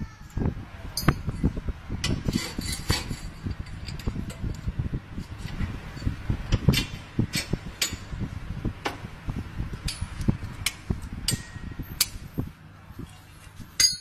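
Steel leaf-spring leaves and metal parts clinking and knocking as they are handled and set in place: irregular sharp metallic clinks and knocks, the loudest about a second in, near the middle and just before the end.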